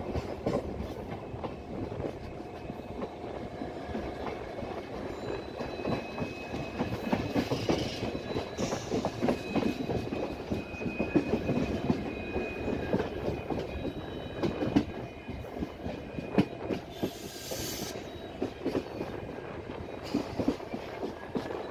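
A passenger train's coaches running over rail joints and points, the wheels knocking and clattering in quick irregular strokes over a steady rumble. A thin, high squeal rises over the clatter for several seconds in the middle.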